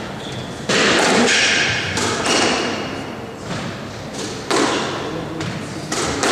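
Squash rally: the ball struck by rackets and hitting the court walls, sharp thuds every second or two that ring on around the court.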